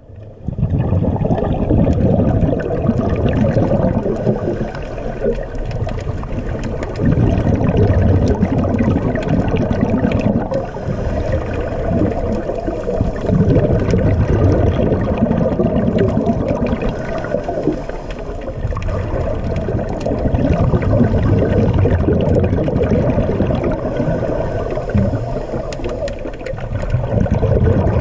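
Muffled underwater rush and gurgle of scuba bubbles, recorded below the surface. It is strongest in the low range and swells and eases unevenly.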